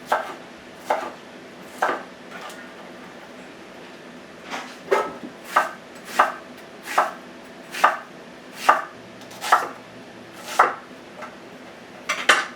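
Kitchen knife dicing food, single chopping strokes about once a second, with a short pause early on and a quick pair of strokes near the end.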